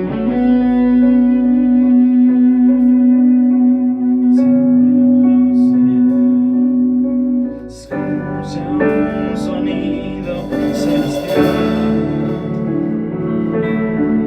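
Instrumental guitar music: a single note held and sustained for about seven seconds over a soft backing, then after a brief dip a fuller passage with new chords begins.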